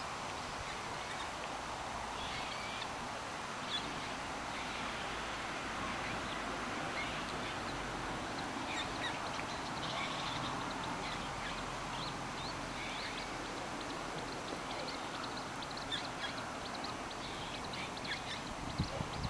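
Many short, high bird calls, scattered irregularly over a steady background rush of outdoor noise.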